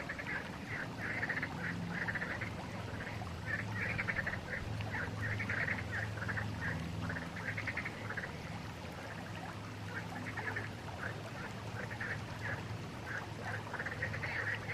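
Flowing river water, with a chorus of short, rapidly pulsed animal calls repeating about twice a second, fading a little in the middle and picking up again near the end.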